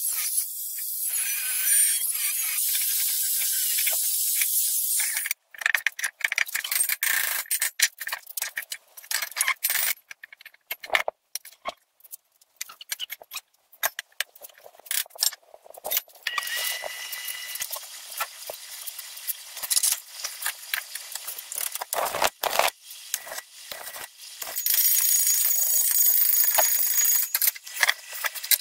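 An angle grinder cuts into a steel gas cylinder for about five seconds. Then come irregular metal clinks, knocks and scrapes as the cut sheet-metal pieces are handled. A steady grinding hiss returns near the end.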